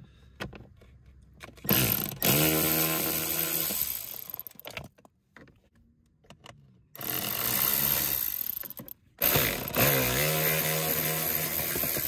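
A cordless power driver runs in short bursts of a couple of seconds, its motor whine rising as it spins up and then holding steady, while it backs out the 8 mm screws that hold the blower motor.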